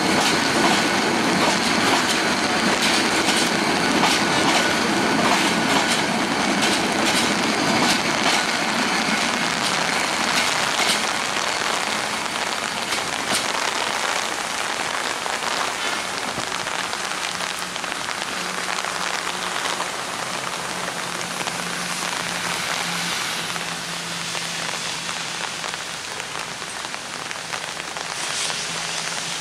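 Passenger train coaches rolling away on broad-gauge track: a steady hiss and rattle of wheels on the rails that fades as the train recedes. A low steady hum comes in about two-thirds of the way through.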